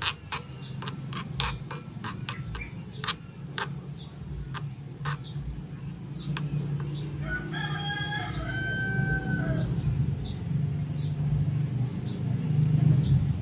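Metal spatula clicking and scraping against a small aluminium wok while stir-frying. A rooster crows once, about seven seconds in, for a little over two seconds, over a steady low rumble.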